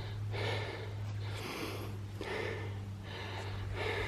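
A person breathing heavily and out of breath after a steep uphill climb, with regular loud breaths about once a second over a steady low hum.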